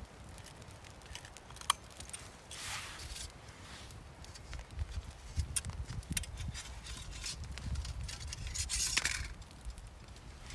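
Scattered small clicks and crackles, with a sharp click a little under two seconds in and two brief rustles, one at about three seconds and one about nine seconds in.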